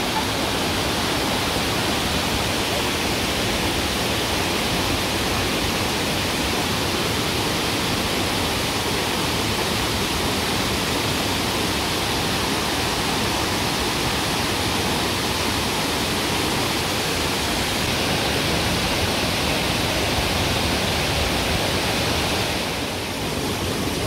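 Waterfall pouring steadily, a constant rush of falling water that drops a little in level near the end.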